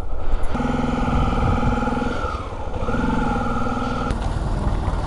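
Honda Tornado 250's single-cylinder motorcycle engine running at low road speed. Its pitch drops briefly about two seconds in as the throttle eases, then steadies again before it fades about four seconds in.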